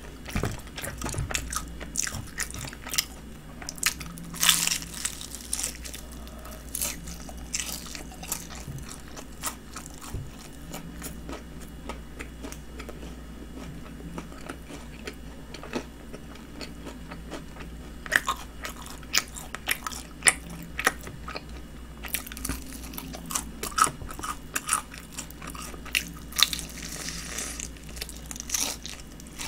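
Close-up crunching and chewing of crispy honey-glazed fried chicken as a person bites into the pieces and eats them. There are clusters of sharp crunches near the start and again over the last third, and quieter chewing in between.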